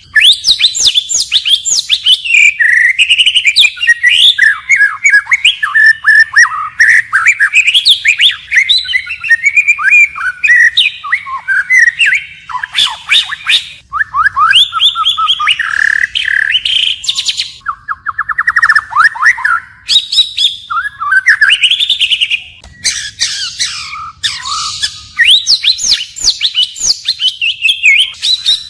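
White-rumped shama singing continuously, a long run of varied whistled phrases that change from one to the next, with a fast trill about two-thirds of the way through.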